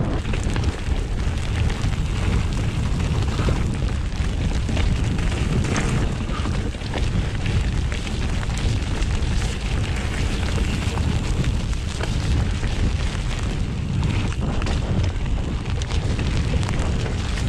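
Mountain bike ridden down a dirt trail, heard through an action camera: steady wind rumble on the microphone over tyre noise, with quick clicks and clatter from the bike jolting over rough ground.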